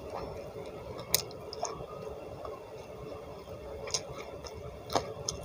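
Close-up mouth sounds of eating with the fingers: wet chewing and squishing of a mouthful of rice and vegetables, with a few sharp crisp clicks spread through, the last ones near the end as crispy fried salted fish goes to the mouth.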